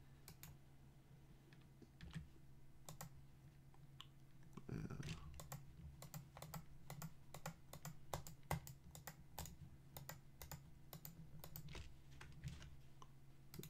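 Quiet, irregular clicking of a computer keyboard and mouse at a few clicks a second, sparse at first and denser from about five seconds in, over a low steady hum.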